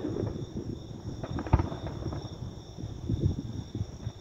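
Distant fireworks booming across the harbour: one low, sharp boom about a second and a half in, then a few lighter thumps around three seconds in.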